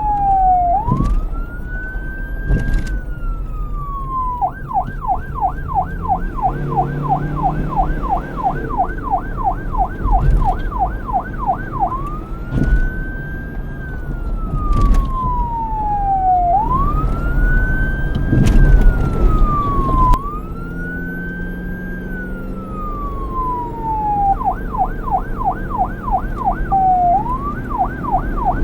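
Police car electronic siren switching between the slow rising-and-falling wail and the fast yelp of about four sweeps a second, over a low rumble of traffic. It opens on the wail, goes to yelp about four seconds in, back to wail at about twelve seconds, and to yelp again near the end.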